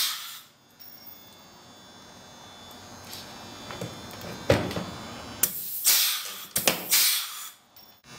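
Pneumatic pop-rivet gun setting aDP blind rivets in a race car's plastic body panel: a sharp click about halfway through, then two loud bursts of air hiss, each under a second, near the end.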